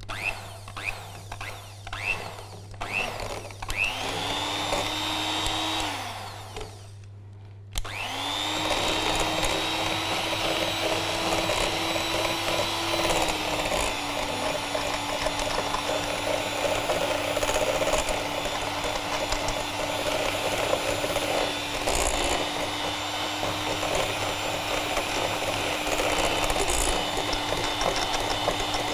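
Handheld electric mixer beating butter and icing sugar in a glass bowl, started slowly so the icing sugar doesn't fly out. After a few knocks, its motor whine starts about four seconds in and stops briefly. It then starts again and runs steadily, dropping a little in pitch about halfway through.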